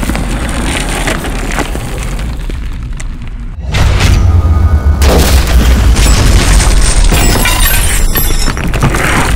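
Crash sound effects for animated destruction: a sudden, loud, deep boom about four seconds in, then a sustained heavy low rumble of walls breaking apart into debris.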